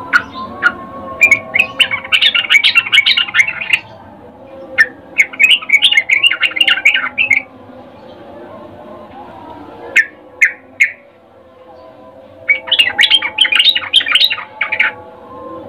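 Yellow-vented bulbul (trucukan) giving runs of rapid chattering calls: three runs of about two to three seconds each, with three short single notes between the second and third. It is a female's breeding-condition call, the kind used as a lure to set males singing.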